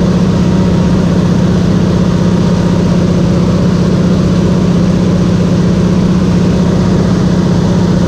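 Single-engine propeller airplane in flight, heard from inside the cockpit: the engine and propeller make a loud, steady drone with a strong low hum.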